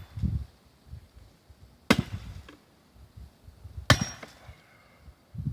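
A heavy hand tool smashing into a chainsaw twice, about two seconds apart, each a sharp crack.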